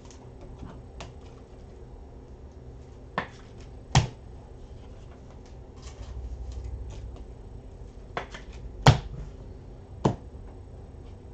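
A handful of sharp clicks and taps from hands handling things at a desk, with fainter ticks between them. The loudest click comes about nine seconds in.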